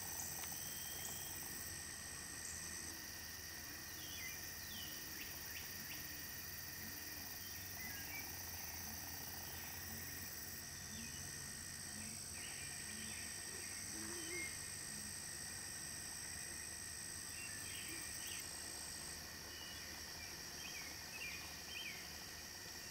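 Field ambience of insects calling in steady, even high trills like crickets, with scattered short bird chirps over it. One of the highest trills stops a few seconds in and starts again near the middle.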